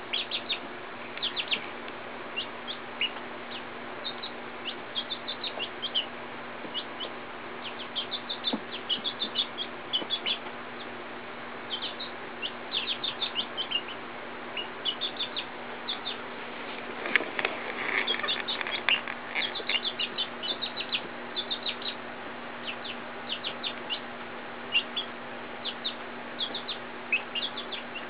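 Young Silkie chickens peeping: quick runs of short, high-pitched cheeps, with a louder, busier flurry of calls about two-thirds of the way through.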